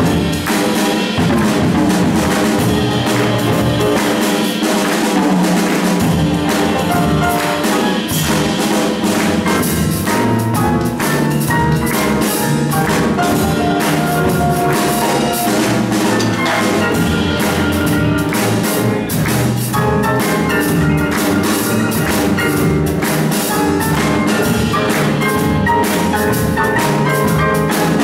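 Jazz piano trio playing a blues improvisation: grand piano, plucked double bass and a Slingerland drum kit with cymbals playing together without a break.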